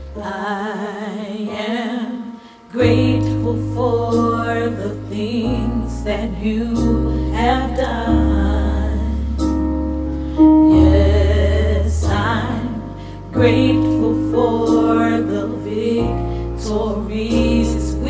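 Gospel song with layered, multi-tracked female voices singing wordless 'oo' harmonies over long held low bass notes. The full harmony comes in about three seconds in, after a quieter single-voice start.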